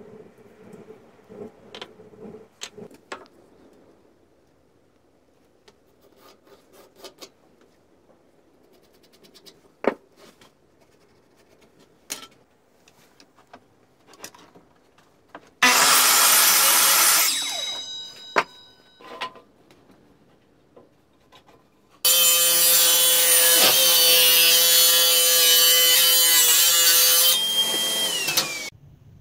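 Power saws cutting a beech blank: a mitre saw runs and cuts for about two seconds, about halfway through, then winds down. Later a table saw runs steadily for about six seconds, its whine dropping in pitch just before the sound cuts off. Scattered light clicks and knocks come before the first cut.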